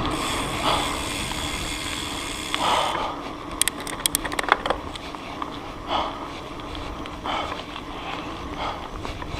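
Mountain bike riding a dirt trail: tyre and trail noise, with the SPEEDONE Torpedo rear hub's 8-pawl, 96-engagement freehub ratcheting while coasting. A quick run of sharp clicks comes about three and a half seconds in.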